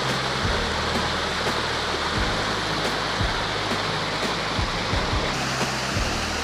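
Small creek waterfall rushing steadily, its flow raised by recent rain, with background music underneath.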